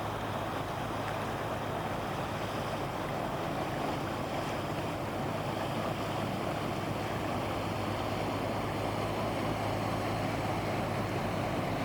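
A boat's engine running steadily on the water, a constant low hum under a wash of water and wind noise.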